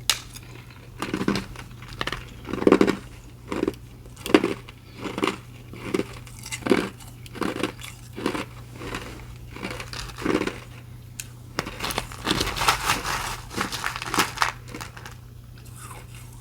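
Ice being crunched between the teeth close to the microphone: a run of crunches about two a second, with a denser stretch of crunching near the end.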